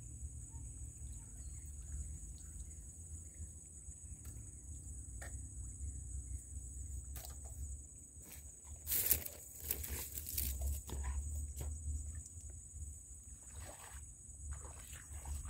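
Outdoor wetland ambience: a steady high insect drone over a low wind rumble, with a cluster of splashes and rustles about nine to eleven seconds in as a lift net is worked and waded through in shallow water.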